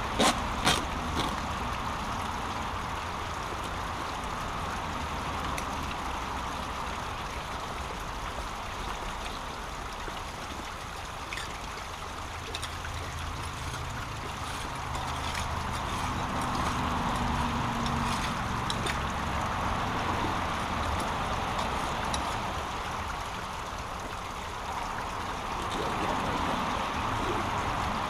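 Brook water running and trickling through a jam of logs and litter at a small waterfall: a steady rush that swells and eases a little. A few sharp knocks in the first second or so as debris is pulled about by hand.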